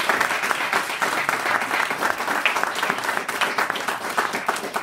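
Applause: a group of people clapping, many hands at once in a dense, even patter.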